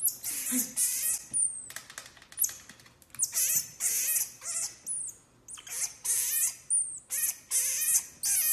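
Common marmoset calling in repeated bursts of shrill, high-pitched chattering, about one burst a second. Several bursts end in a short falling whistle.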